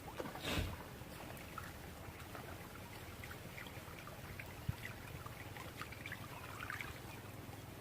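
Faint trickling and running water, with small scattered drips and ticks. About half a second in, a brief rushing noise is the loudest thing heard.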